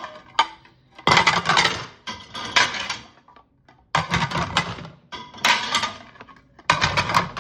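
Dishes clattering and clinking as they are taken out of a dishwasher and set down on a counter, in about five bursts of a second or so each.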